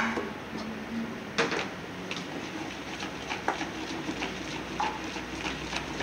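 Chocolate cake batter being stirred in a plastic mixing bowl: a sharp knock about a second and a half in, then light scraping ticks, over a faint steady hum.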